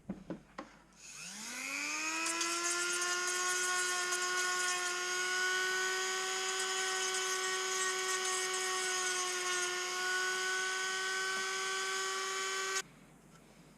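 A small electric motor spins up with a quickly rising whine, runs at a steady high pitch for about eleven seconds, then cuts off suddenly.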